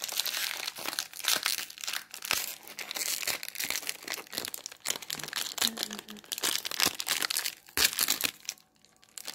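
Plastic Rice Krispies Treat wrapper crinkling and tearing as it is handled, a dense run of crackles that dies down about a second before the end.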